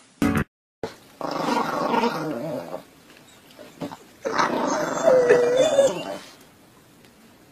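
Chihuahua growling in two long bouts, the second with a whining note in the middle. A brief sound cut off abruptly comes just before them.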